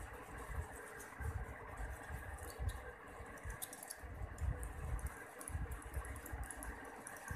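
A metal utensil scraping gel out of a cut aloe vera leaf into a bowl: faint scratches and small clicks, over irregular low rumbles of handling.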